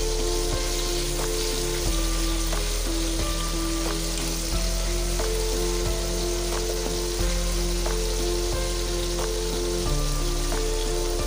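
Quail pieces sizzling as they fry in oil in a non-stick pan, stirred with a wooden spatula that gives soft irregular ticks against the pan. Background music of slow held notes runs underneath.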